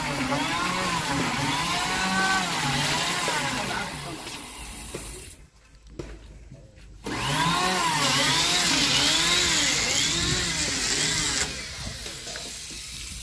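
A handheld electric power tool cutting along the new timber rail of a wooden boat. Its motor pitch sags and recovers over and over as it bites into the wood. It stops for about a second and a half midway, then runs again until shortly before the end.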